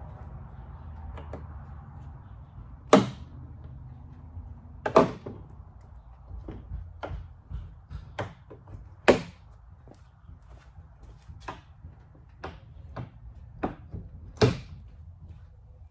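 A series of sharp knocks and clunks at uneven intervals, four of them much louder than the rest, over a low steady rumble.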